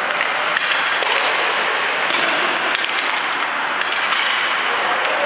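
Indoor ice hockey rink noise: a steady hiss with a few light, sharp clicks and taps of sticks and puck on the ice.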